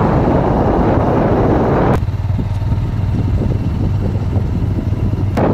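Road vehicle driving, with a low steady engine drone and wind rushing over the microphone. The rushing cuts off abruptly about two seconds in, leaving only the drone, and comes back just before the end.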